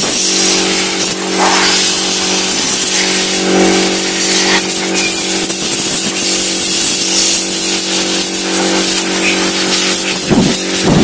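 Electric air compressor running steadily with a constant hiss of blowing air, used to blast dust out of a desktop computer during cleaning.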